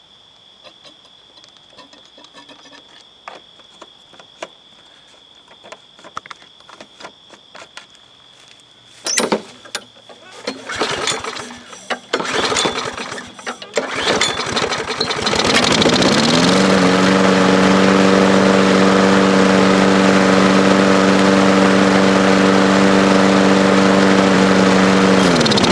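Craftsman push mower's small engine being pull-started after gas was squirted into the carburetor: a few faint clicks, then several loud pulls and sputters about halfway through before it catches, rises to speed and runs steadily for about nine seconds, then shuts off suddenly near the end. It runs smoothly on its own carburetor, so only the primer bulb is faulty.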